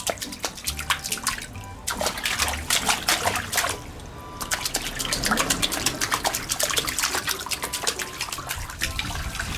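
Hands patting and slapping the surface of shallow water in an inflatable paddling pool, a quick run of small splashes with two short breaks, about 2 and 4 seconds in.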